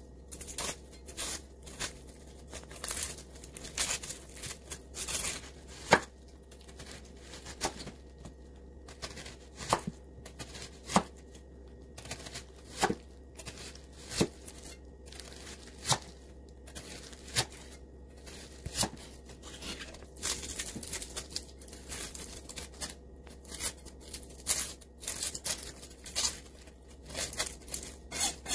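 Dry, papery onion skin crackling and tearing as it is peeled, then a chef's knife slicing through onion and tapping the wooden cutting board about once a second. More skin crackles about two-thirds of the way through as a second onion is peeled.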